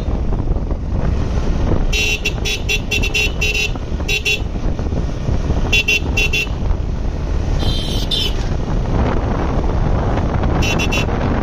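A motorcycle on the move, its engine and the wind making a steady rumble. A horn is tooted over it in runs of short beeps: about eight quick beeps some two seconds in, shorter runs near four, six and eleven seconds, and one longer beep around eight seconds.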